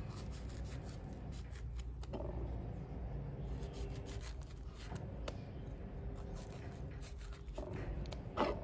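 Small knife scoring and cutting through a pomegranate's tough rind: soft scraping with a few small clicks, over a low steady hum.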